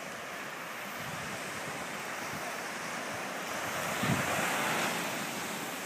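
Ocean surf washing onto a sandy beach, a steady rush that swells to its loudest as a wave breaks about four seconds in, with wind buffeting the microphone.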